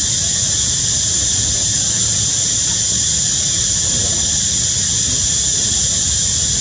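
Steady high-pitched insect chorus, a continuous shrill drone with no breaks, over a low steady rumble.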